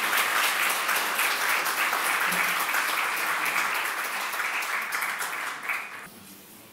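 Audience of seated dinner guests applauding steadily; the clapping stops abruptly about six seconds in.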